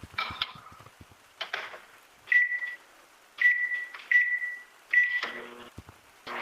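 Microwave oven keypad beeping four times as it is set, each a short single-pitched beep, after a few clicks and knocks.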